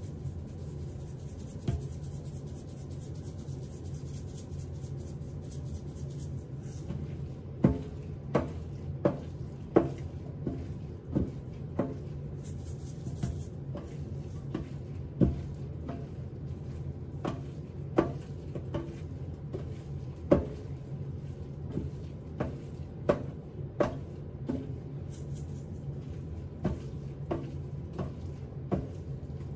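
Irregular sharp knocks and clicks, about one or two a second, starting several seconds in: a spice container handled and tapped over a bowl at the sink while seasoning steak. A steady low hum lies underneath.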